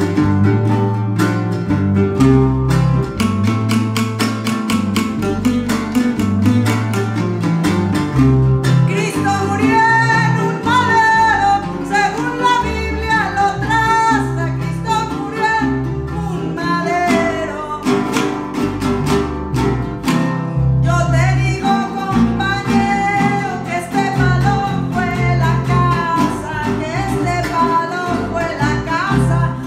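Son jarocho played live: jaranas strummed in a quick rhythm over an electric bass line. A woman's singing voice comes in about nine seconds in, breaks off briefly around twenty seconds, and carries on to the end.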